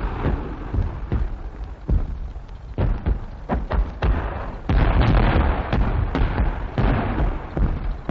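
Massed British artillery barrage of some three hundred guns firing: a continuous rumble of overlapping gun reports with many sharp cracks among them. It grows heavier about halfway through.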